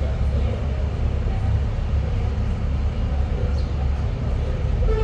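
Steady low rumble of a moving vehicle heard from inside the cabin, with engine and road noise and no distinct events.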